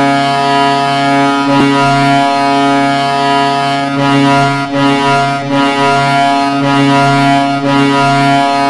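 Hockey goal horn blowing one long, steady, deep blast, with a few brief dips in the middle.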